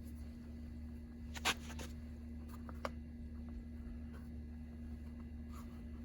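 Two sharp clicks of small parts being handled, the first louder, about a second and a half and three seconds in, with a few faint ticks, over a steady low hum.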